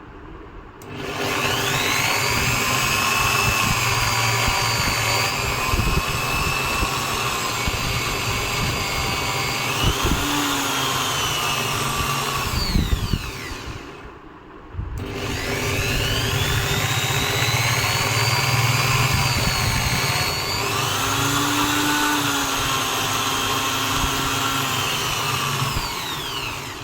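Electric drill press motor spinning up with a rising whine, running steadily for about twelve seconds, then winding down. It is switched on again a second or so later for a second run of similar length. The press is turned sideways to spin a hardwood dowel as a makeshift lathe.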